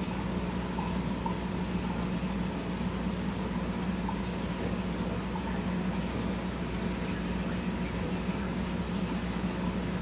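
Aquarium filter pump running: a steady low hum with a constant hiss of moving water.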